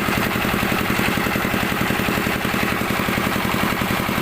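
A motor running steadily with a rapid, even chugging.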